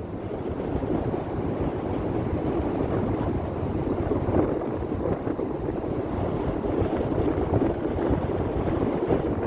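Rough sea churning and breaking in strong wind, a steady rushing noise, with wind rumbling on the microphone.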